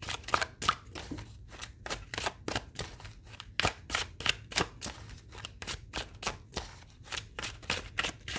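Tarot deck being shuffled by hand: a quick, uneven run of sharp card clacks, several a second, as the cards are cut and slapped together.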